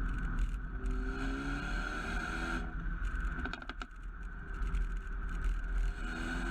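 Mercedes-AMG A35's turbocharged 2.0-litre four-cylinder engine accelerating with rising pitch, then lifting off about two and a half seconds in. A few sharp exhaust pops and crackles follow on the overrun, and the engine pulls again near the end.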